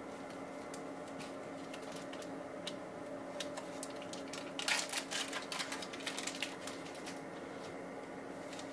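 Crinkling and clicking of a sterile paper-and-plastic wrapper being handled, in scattered clicks that bunch into a dense crackle about halfway through, over a steady low hum.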